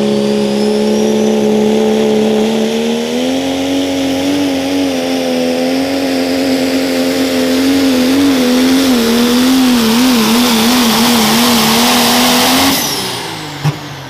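Dodge Ram pro stock diesel pulling truck at full throttle hauling the sled: a steady, loud engine drone that steps up in pitch about three seconds in and wavers rapidly over the last few seconds of the run. It cuts off suddenly near the end of the pull, and a single sharp click follows.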